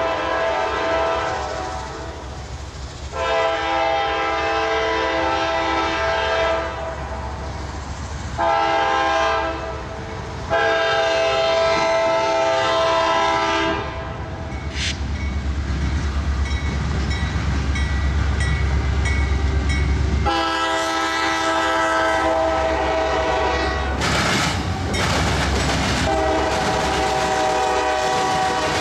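CSX diesel freight locomotive's air horn sounding the grade-crossing signal as the train approaches: two long blasts, a short one and a long one, then another long blast. Between the blasts comes the deep rumble of the locomotive passing, and near the end the rhythmic clatter of wheels over the rails.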